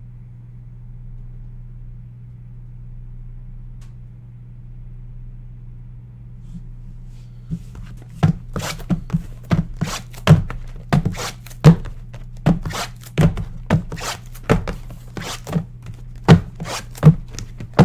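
A steady low hum, then from about halfway in a run of sharp thunks and taps, roughly two a second. They come from shrink-wrapped cardboard trading-card hobby boxes being picked up and set down on a desk as they are restacked.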